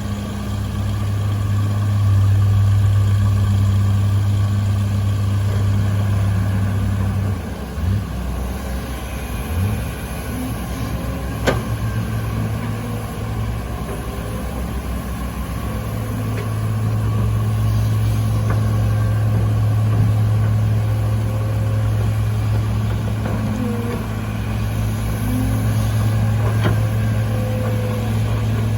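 Excavator's diesel engine running under work, with a steady low hum. The engine eases off about seven seconds in and picks up again at about sixteen seconds. A single sharp knock sounds about eleven seconds in.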